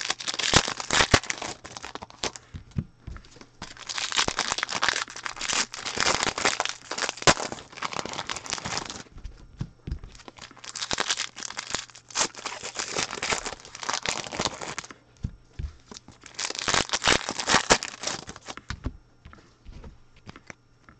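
Foil wrappers of Prizm football-card packs crinkling and tearing as the packs are opened, in four long bursts, with small clicks and taps of cards being handled in between.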